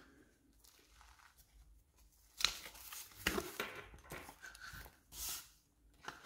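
Gold metal zipper of a Loungefly zip-around wallet being pulled open: a rasping run of zipper teeth starting about two and a half seconds in, then rustling as the opened wallet is handled.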